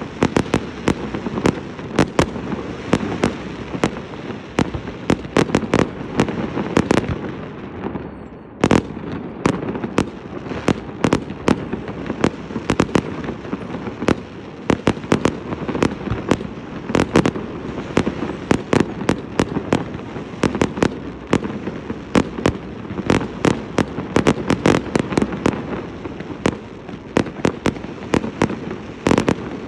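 Fireworks display: a rapid, continuous series of sharp bangs, several a second, over a steady rumble, with a brief lull a little after a quarter of the way through.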